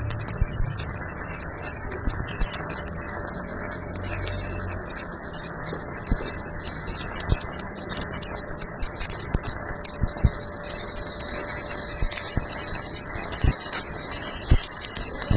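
Electric welding arc burning steadily: a constant hiss with irregular sharp crackles and pops.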